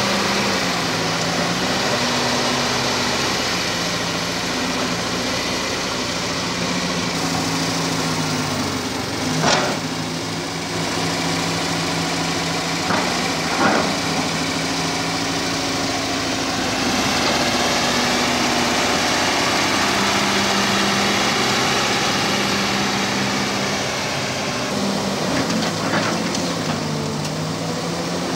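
Kobelco SK200 excavator's diesel engine running steadily, its speed dipping briefly and recovering several times. A few sharp knocks come around the middle and again near the end.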